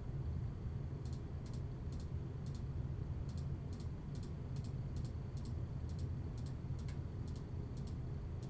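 Light, sharp clicks at roughly two to three a second, starting about a second in, from someone working a computer, over a steady low hum.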